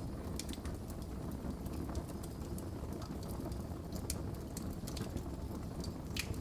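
Wood fire burning in a fireplace: a steady low roar of flames with irregular sharp crackles and pops, a louder pop near the end.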